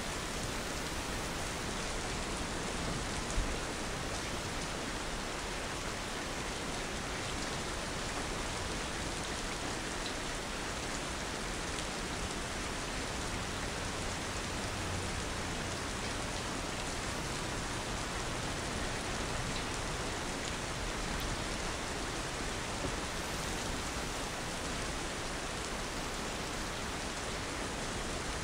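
Steady rain falling, an even hiss that doesn't change, with one brief sharp tick about three seconds in.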